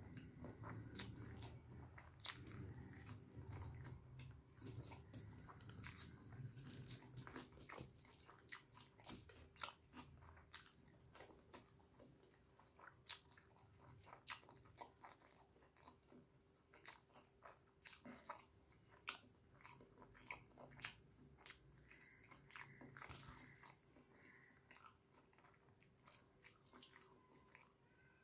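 Quiet close-up eating sounds: a man chewing a mouthful of rice with fried onions and chicken, with many small wet mouth clicks and crunches.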